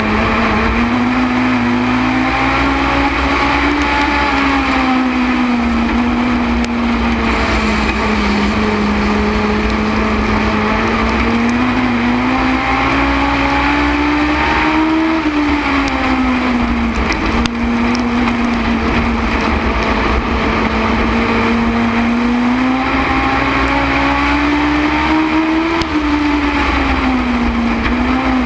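Legends race car's Yamaha 1250 cc four-cylinder motorcycle engine at racing speed, heard from on board. Its pitch climbs along each straight and drops back off into each turn, about every eleven seconds, lap after lap.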